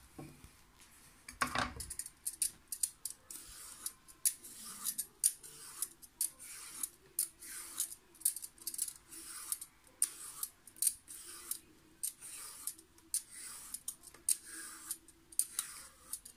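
Vegetable peeler scraping skin off a fresh zucchini in many quick, sharp strokes, about two a second.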